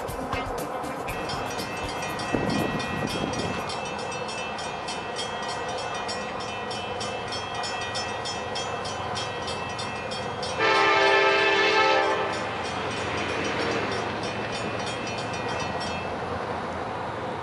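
Approaching Union Pacific freight train: its locomotive's air horn sounds one chord blast of about a second and a half, about ten seconds in, over the train's steady rumble.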